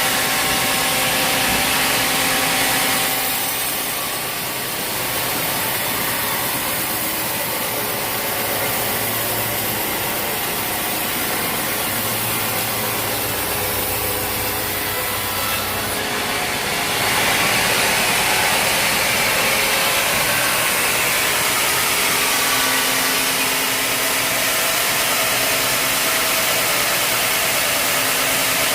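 Sawmill saw cutting through a log with its engine running, a steady rasping noise. It dips about four seconds in and grows louder again about seventeen seconds in.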